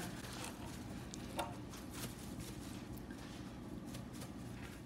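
Faint handling sounds of a plastic seasoning shaker being shaken over raw whole chickens and the seasoning rubbed into the skin by hand, a few soft ticks and scrapes over a low steady hum.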